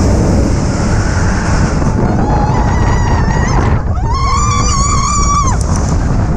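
Roller coaster train (Expedition Everest) racing down the track, with a heavy rumble of wind and track noise on the ride-mounted microphone. Riders scream from about two seconds in, with one long high scream in the middle.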